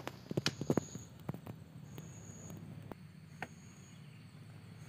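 Rustling and light knocks as a fabric drawstring bag is handled against a plastic storage box, mostly in the first second and a half, with one more tap later. A high insect trill comes and goes about every second and a half in the background.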